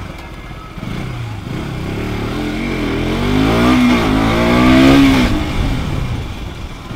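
KTM RC 200's single-cylinder engine revving hard under acceleration, its pitch climbing, dipping briefly at a gear change, climbing again to its loudest, then falling away as the throttle closes near the end.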